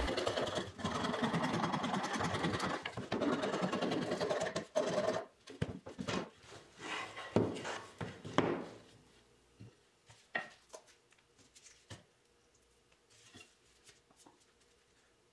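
Hand rasp filing the rough jigsaw-cut edges of the bowl holes in a wooden panel, in quick back-and-forth strokes for about five seconds, then a few separate strokes that stop about halfway through. After that only a few light knocks.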